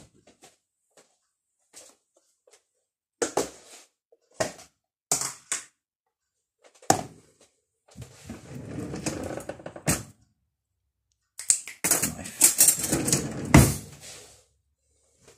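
Plastic clicks and knocks as a tub of spread is handled and opened, then a knife scraping spread out of the tub and across crumpets. The scraping and tapping are loudest in a burst near the end.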